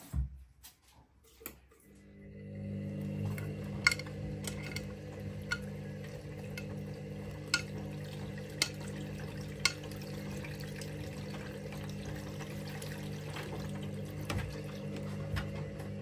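Front-loading washing machine (Candy Smart) in a wash cycle: after a thump and a short pause, the drum starts tumbling the wet laundry about two seconds in, with a steady motor hum and sloshing water. A few sharp clicks come from the load knocking against the drum.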